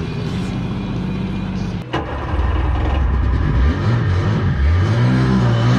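Mini jet boat engines running, broken by a short dropout about two seconds in. After it a nearby engine speeds up, its pitch climbing and wavering before holding steady near the end.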